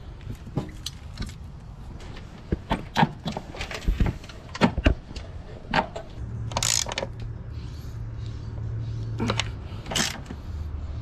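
Metal parts clinking and knocking as a red aftermarket upper control arm is fitted to a Honda EF's strut tower, its mounting nuts run down with a hand ratchet. After about six seconds a steady low hum lasts about three seconds.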